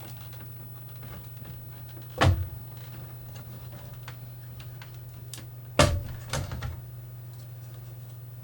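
Light clicks and handling noise as console parts are lifted and moved, with two sharp knocks about two seconds and six seconds in as pieces are set down on the workbench, the second followed by a few smaller knocks. A steady low hum runs underneath.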